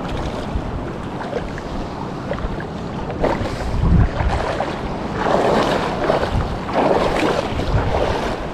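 Wind buffeting the microphone over sloshing shallow seawater, with strong gusts about four seconds in and again near the end.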